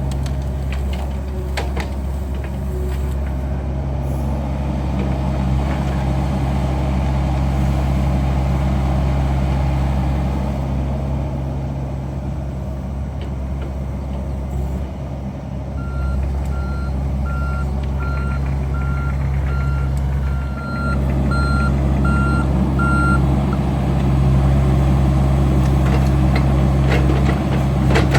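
Diesel engine of a heavy earth-moving machine running steadily. In the second half its backup alarm beeps about ten times over some seven seconds as the machine reverses.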